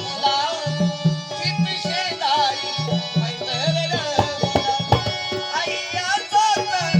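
Instrumental passage of Marathi gondhal folk music: a hand drum plays a steady repeating rhythm under a bending melodic lead line.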